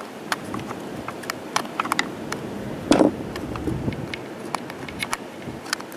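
Scattered light clicks and taps of a screwdriver and fingertips on a chainsaw's plastic and metal housing while a cover plate over the clutch shaft is prised up. One louder short thump about three seconds in.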